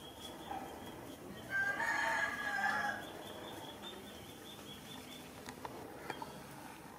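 A rooster crowing once, about a second and a half long, starting about a second and a half in.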